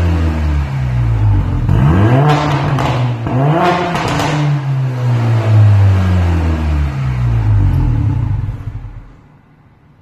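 Mercedes A45 AMG's turbocharged 2.0-litre four-cylinder revving through an Armytrix valvetronic exhaust. The engine note falls, then two quick blips climb and drop back. It winds down slowly again before the sound cuts off near the end.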